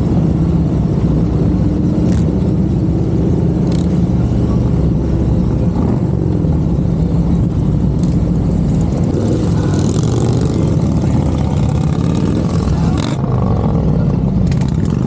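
Harley-Davidson V-twin motorcycle engine running steadily under way, with a low rumble throughout.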